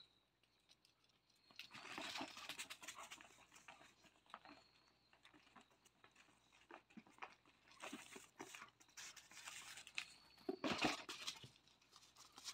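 Faint scuffling and rustling of puppies' paws moving over a fabric-covered raised dog cot and dirt, in scattered bouts with a louder scuffle near the end, and a few faint high squeaks.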